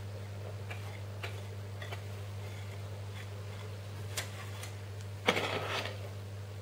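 Light clicks and taps of kitchen utensils being handled, then a louder clatter about five seconds in, over a steady low hum.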